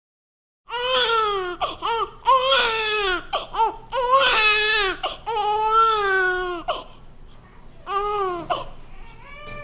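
Newborn baby crying: a run of short wails that rise and fall in pitch, starting just under a second in. The crying drops off about seven seconds in, comes back with one more wail, then carries on more softly near the end.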